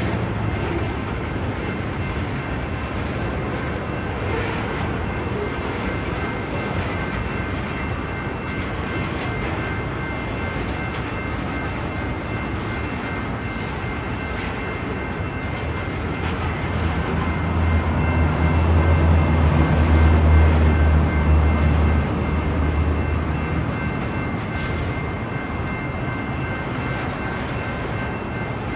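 Loaded freight train of rock-filled gondolas rolling past at close range: a steady rumble and clatter of steel wheels on rail. A deeper low rumble swells for a few seconds past the middle, then eases.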